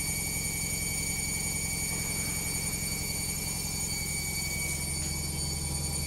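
LOGIK front-loading washing machine on its spin cycle: the drum spins with a steady low hum and a steady high motor whine.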